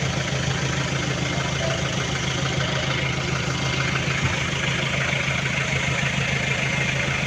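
JMC truck engine idling steadily, running again after a crank-but-no-start fault has been fixed.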